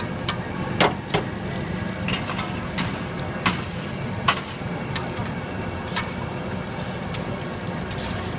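Sharp clinks and taps of metal utensils, about a dozen at uneven intervals, over a steady low background noise.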